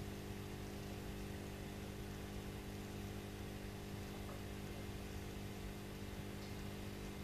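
Aquarium pump humming steadily, with a faint even hiss over it.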